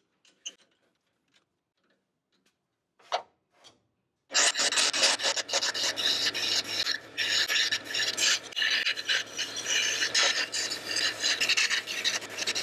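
A few light clicks and knocks, then about four seconds in a turning gouge starts cutting a spinning maple handle blank on a wood lathe: a loud, continuous rough scraping of the tool shaving wood, over a low hum from the lathe.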